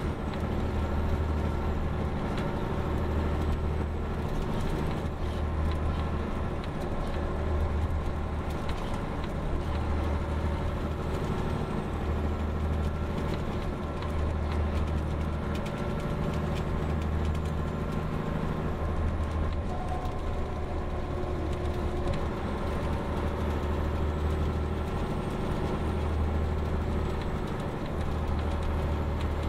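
MCI D4500 coach's Detroit Diesel Series 60 engine running steadily under way, heard inside the passenger cabin: a low drone with a slow, regular throb, over road and body noise.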